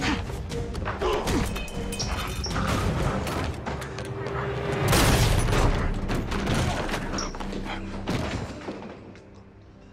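Fight-scene soundtrack: a rapid run of hits and thuds over a tense action music score, with a loud crash about five seconds in. The action fades out near the end.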